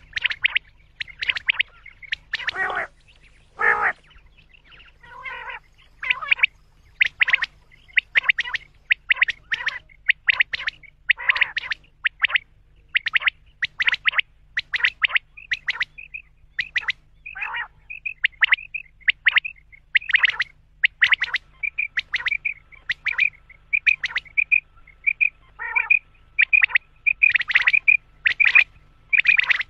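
Quail calling over and over: short, sharp notes about twice a second, with two longer, fuller calls near the start. A faint steady low hum lies underneath.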